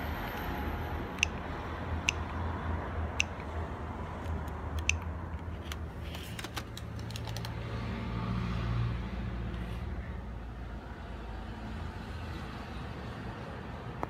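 Keys on a Sony Ericsson T100's keypad pressed one at a time: four short sharp clicks about a second apart, then a quick run of clicks around six seconds in, over a steady low hum.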